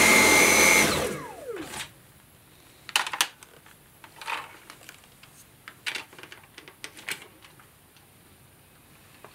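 Dyson V7 Motorhead cordless vacuum running with a high whine, then switched off about a second in, its motor whine falling as it spins down. This is followed by a series of sharp plastic clicks and knocks as the cleaner head and body are handled.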